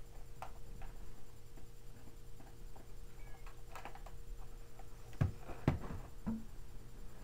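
Handling noise: scattered light clicks and knocks of small objects being moved about on a desk close to the microphone, with two louder knocks a little past five seconds in, over a steady low electrical hum.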